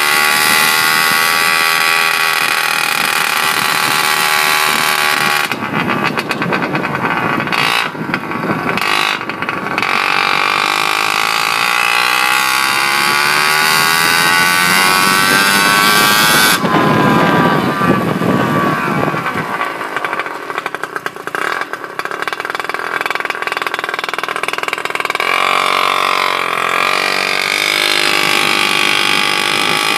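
1985 Honda Spree scooter's two-stroke engine, fitted with a 48 mm big-bore kit and 21 mm carburettor and run without an air filter, running as the scooter is ridden gently to break it in; its pitch rises and falls with the throttle. Wind buffets the microphone in two stretches, about six to ten seconds in and again around seventeen to nineteen seconds.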